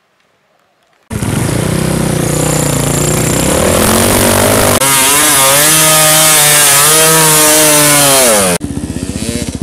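Two-stroke enduro motorcycle engine revving hard under load, its pitch swinging up and down, starting abruptly about a second in. Near the end the revs drop to a lower, choppy note.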